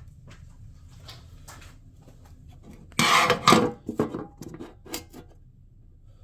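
A sudden clatter of hard parts being handled, about three seconds in, followed by a few lighter knocks and clicks as the fender-shroud hardware and tools are picked up and moved.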